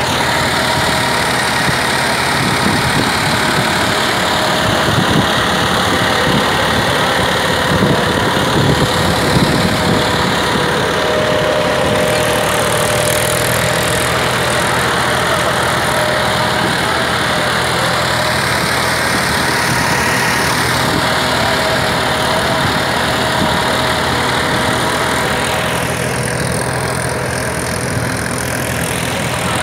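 Massey Ferguson 9500 tractor's diesel engine running steadily under load while pulling a duck-foot tiller through the soil. It grows a little quieter near the end as the tractor moves away.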